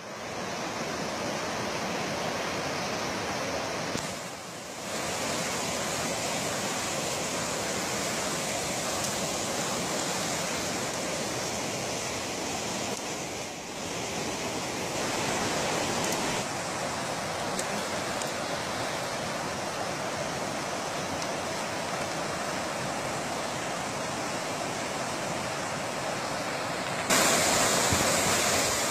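Fast river water rushing over rocks, a steady, even rush of noise that steps up louder about 27 seconds in.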